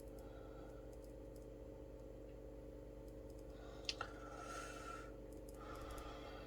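A sharp click about four seconds in, then two short spells of scratching that fit a pen writing on paper, over a steady low electrical hum.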